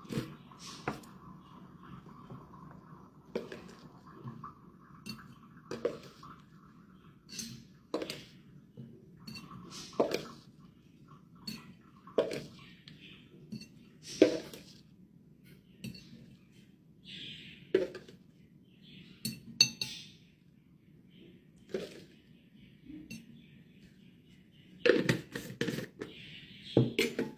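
A spoon clinking against a glass bottle as creatine powder is spooned in, one sharp clink about every two seconds, with a louder flurry of clinks near the end.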